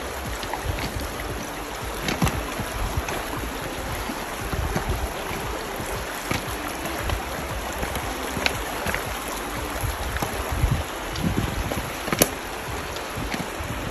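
Shallow creek running over gravel and stones, a steady rush of water, with scattered clicks and crunches from steps on the rocks and a low rumble of wind on the microphone.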